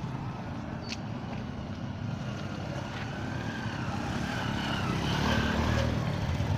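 Motor vehicle running along the road: a steady low engine and road rumble that grows a little louder past the middle, with a faint wavering tone above it.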